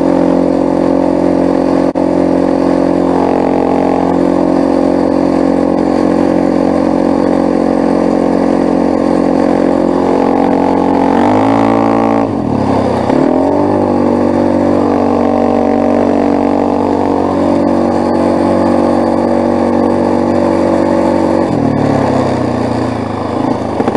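Quad bike (ATV) engine running steadily under load while towing a train of sleds over snow. The engine pitch changes briefly about halfway through and again near the end.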